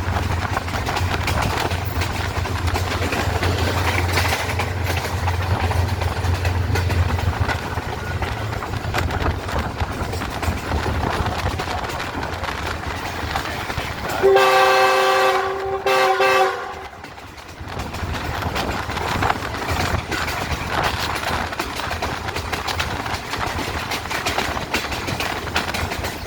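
A GE U20 diesel-electric locomotive hauling a passenger train on the move, with steady running and rail noise and a low engine hum that drops away about seven seconds in. Past the middle the locomotive sounds its horn, one loud blast of about two and a half seconds, briefly broken near its end.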